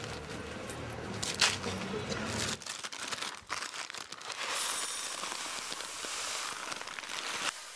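A paper bag of arborio rice crinkling as it is handled and opened, then the rice grains pouring from the bag into a glass bowl as a steady hiss for about three seconds that cuts off near the end.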